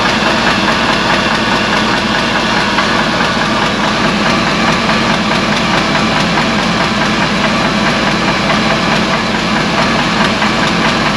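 1948 GMC truck engine idling steadily, just brought back to life with three cylinders chewed up and their rings stuck, and a light rattle that the owner puts down to piston slap.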